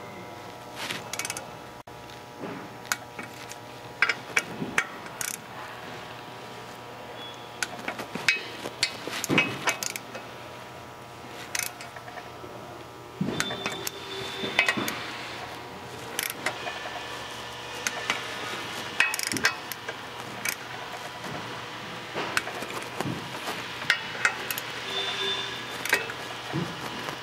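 Torque wrench ratcheting and clicking as clutch pressure plate bolts are tightened to spec, with sharp metal clicks and clinks coming singly and in quick runs, and a couple of brief metallic rings.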